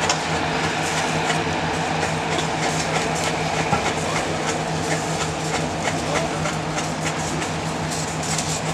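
Hot umu rocks sizzling and crackling steadily in the coconut-cream sosi sauce in a wooden tanoa bowl, burning and caramelising it. A steady low hum runs underneath.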